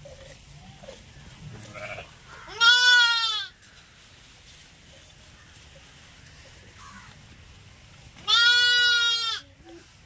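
Two loud bleats from the flock of sheep and goats, each about a second long and about six seconds apart, over a faint background.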